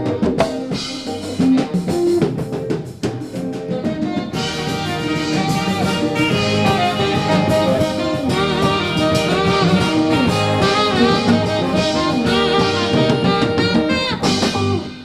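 Live jazz band playing the end of a tune: a drum kit and hand drums play busily, brass horns come in about four seconds in with held, bending lines over the drums, and the whole band stops together near the end.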